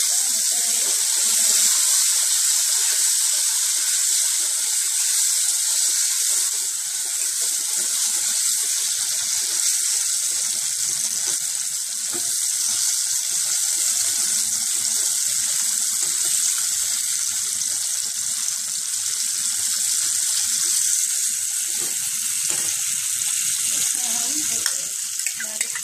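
Boiled green peas and curry leaves sizzling steadily in hot oil in a stainless steel kadhai.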